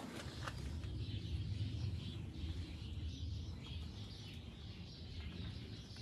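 Quiet background ambience: a low steady rumble with faint bird chirps.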